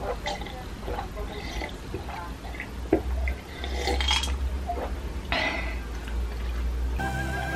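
Iced cola being gulped from a glass: swallowing sounds and ice cubes clicking against the glass, with a short breathy exhale about five seconds in. Music comes in near the end.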